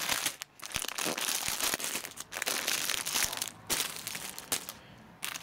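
Clear plastic packaging on folded suit packets crinkling and rustling as the packets are handled on the shelf, in irregular crackles, with a quieter moment near the end.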